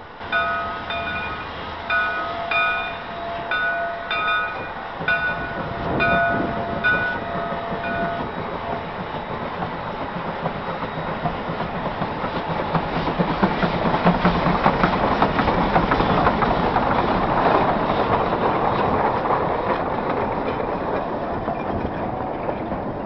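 Shay geared steam locomotive pulling out: its bell rings in a steady rhythm, about one stroke every two-thirds of a second, for the first eight seconds or so. Then the engine's exhaust chuffs and running gear grow louder as it passes close by, easing a little near the end.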